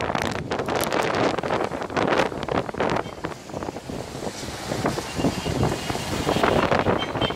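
Strong, gusty wind buffeting the microphone in irregular blasts, easing a little midway and picking up again near the end.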